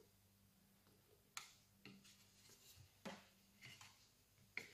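Near silence with three faint plastic clicks, spaced over a few seconds, as a small battery-compartment cover is handled and fitted back onto a circular saw's base.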